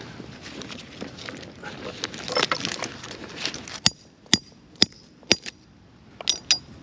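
Steel chain links jangling as the chain is handled, then a hammer striking steel hardware at the chain's end: four sharp metallic taps about half a second apart, followed by a few lighter taps near the end.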